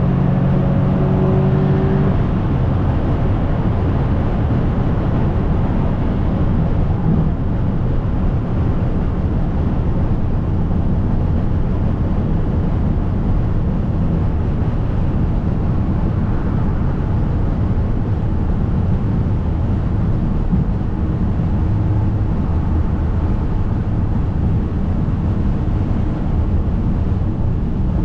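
Inside the cabin of a catless, tuned Audi S3: its turbocharged four-cylinder gives a steady low drone under constant tyre and road noise as the car cruises and slowly loses speed.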